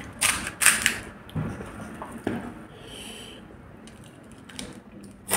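Crisp fried puri shells crackling as fingers press and break holes in them: a cluster of sharp crunches in the first second, then scattered small cracks and clicks.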